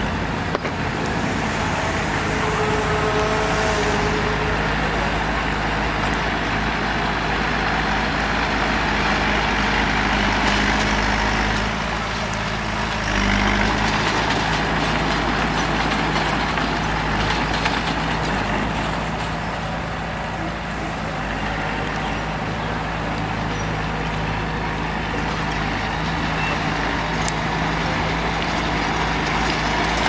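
Diesel engine of heavy construction machinery running steadily.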